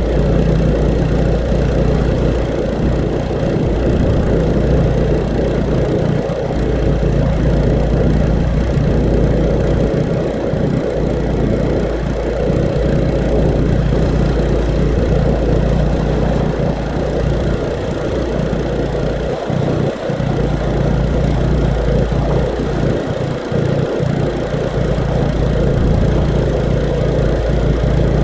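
Small petrol engine of a wheeled pressure washer (water blaster) running steadily through the whole stretch, driving the pump while the lance sprays the house wall.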